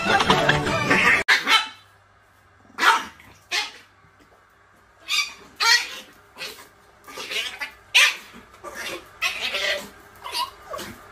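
A small dog barking in short, sharp barks, about ten at uneven intervals. Music plays for the first second or so before the barking starts.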